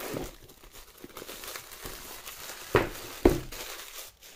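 Plastic shrink-wrap crinkling as it is handled and pulled off a cardboard product box. This is followed by two sharp knocks about half a second apart as the box is handled on the table.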